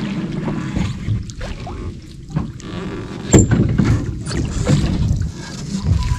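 Knocks and handling noises in a small wooden-oared rowboat, with one sharp knock or click a little past halfway.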